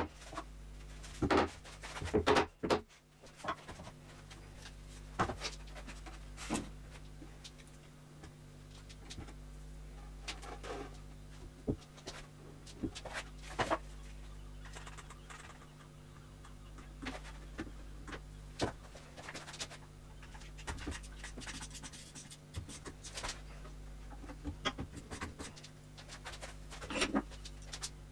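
Scattered light knocks, clicks and scrapes of wooden furniture parts being handled and fitted during assembly, over a steady low hum.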